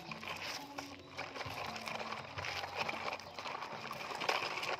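Plastic toy trucks loaded with soil being towed on a string over gravelly dirt, their wheels rolling and clattering irregularly on the small stones.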